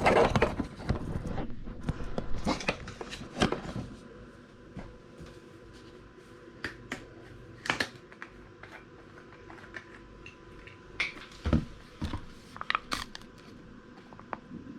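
Small clicks and rustling from handling plastic parts: the oil bottle, the screw-on funnel and the fill cap. The handling is busy for the first few seconds, then thins to scattered single clicks.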